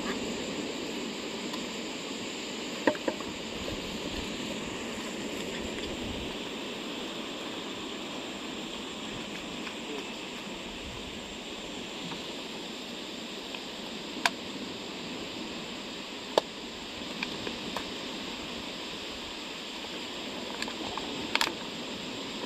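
Steady rush of sea water washing at the shore, with a few short sharp clicks and taps from the fishing gear being handled, scattered through and loudest about three seconds in, in the middle and near the end.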